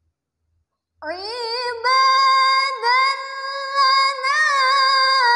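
Near silence for about a second, then a woman's voice starts a long, melodic phrase of Qur'an recitation (tilawah): a held, ornamented note that slides up at the start and then wavers in pitch.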